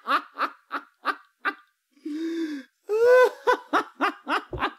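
Laughter: a run of short "ha" pulses, about four a second, broken about two seconds in by a breathy drawn-out sound, then a second burst of laughter.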